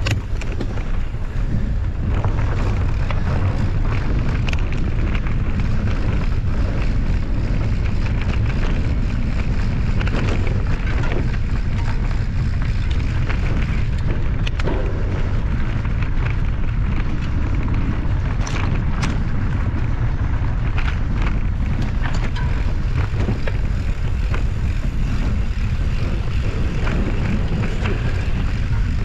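Steady, loud wind rumble on the microphone of a camera carried on a moving mountain bike, with scattered clicks and rattles from the bike or trail.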